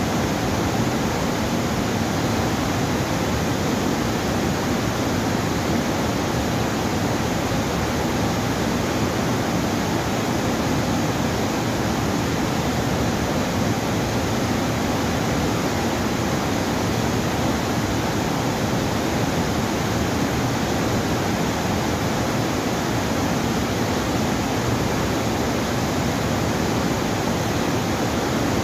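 Steady rushing of water pouring through a dam, an even, unbroken noise with no changes.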